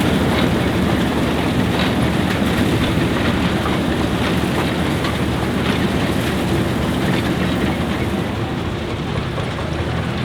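A Claas Super pull-type combine threshing wheat behind a Deutz F3L514 tractor with an air-cooled three-cylinder diesel, making a steady, loud mechanical din with light rattling ticks through it. It eases a little near the end.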